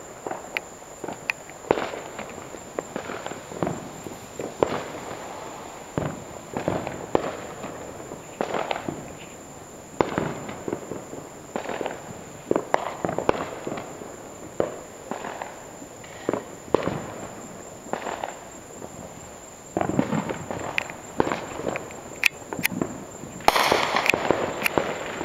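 Fireworks exploding, with sharp bangs at irregular intervals of a second or two. Near the end a denser, louder flurry of bangs goes off.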